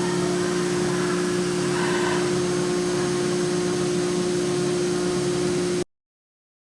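CNC gantry machining center running, its 5.5 kW spindle giving a steady whine over machine noise, until it cuts off abruptly near the end.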